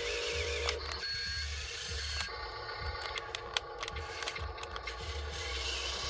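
Small electric motors of an RC toy excavator whining steadily, with scattered sharp plastic clicks and a couple of short electronic beeps.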